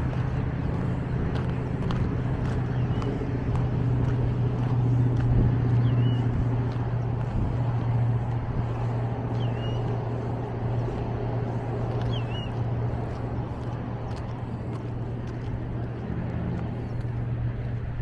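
Steady low rumble of road traffic, with four faint, short bird chirps about three seconds apart.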